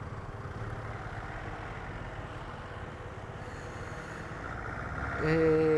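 Bajaj Dominar 400's single-cylinder engine running at low speed through slow traffic, with the hum of the surrounding traffic. Near the end a vehicle horn sounds loudly for about a second, at one steady pitch.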